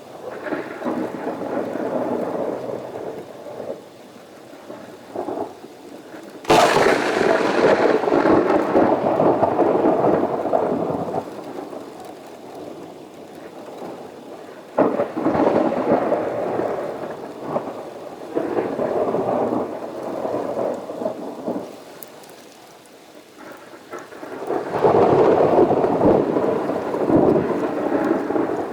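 Thunder in a heavy thunderstorm over rain: a sharp crack about six seconds in breaks into a long rumble, followed by two more rolling rumbles later on.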